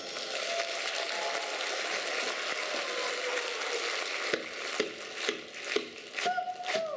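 Audience applauding at the end of a song: a dense clapping for about four seconds that thins into scattered separate claps.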